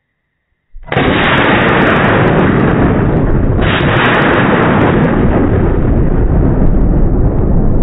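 Three C4 plastic explosive charges of several kilograms each detonating: after silence, a sudden blast just under a second in, followed by a loud, continuous rumbling roar.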